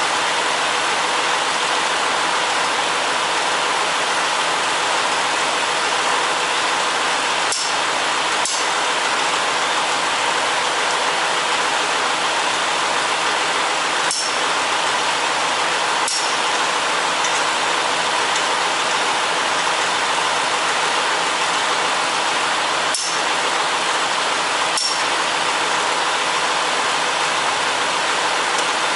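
A steady rushing hiss at an even level, with a handful of sharp metallic clicks and knocks of hand tools scattered through it.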